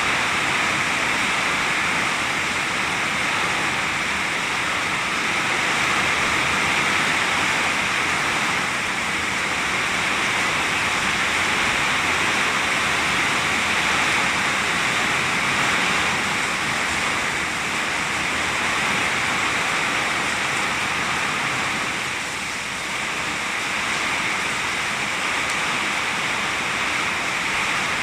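Heavy rain falling in a steady, dense hiss, easing slightly for a moment about two thirds of the way through.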